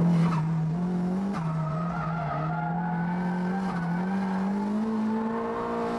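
Nissan Silvia S15 drift car's engine heard from inside the cabin, held at high revs through a drift. The revs dip briefly a few times and climb near the end, with tyres squealing underneath.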